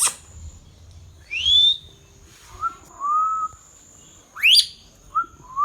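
Ringneck parrot giving a string of short whistles and chirps. A sharp chirp comes at the start, then a rising whistle, softer lower whistles, and a fast upward-sweeping shriek about four and a half seconds in.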